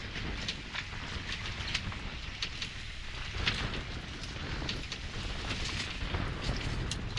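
Wind rumbling on the microphone out on open water, with scattered small clicks and crackles over it.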